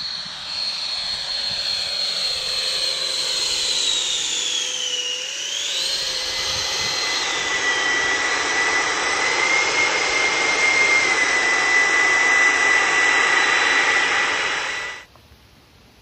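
Twin 120 mm electric ducted fans of a 1:9 scale F-35B RC jet whining at high power, a steady rushing noise with a high whine. The pitch dips and comes back up about five seconds in. The sound cuts off suddenly near the end.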